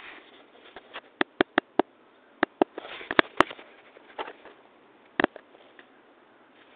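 Sharp, separate clicks: a quick run of four about a second in, more in pairs and a small cluster around two and a half to three and a half seconds, and one last click about five seconds in. A short breathy sniff-like noise comes near three seconds, over a faint hiss.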